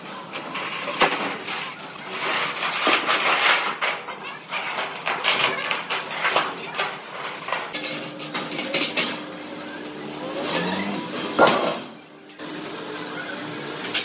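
Metal fabrication shop noise: irregular clanks and knocks from work on sheet steel. A steady machine hum comes in about halfway through, and a sharp loud bang falls near the end.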